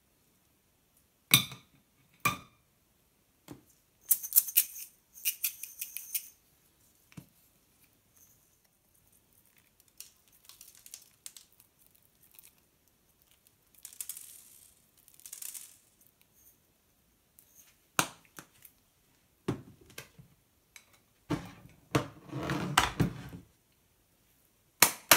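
Close-up tabletop handling sounds: plastic tongs clicking as a frozen strawberry is set on a pancake on a slate plate, then a shaker jar of chocolate sprinkles rattling as it is shaken over the dessert. Sporadic clicks and knocks throughout, with a longer stretch of rattling and rustling near the end.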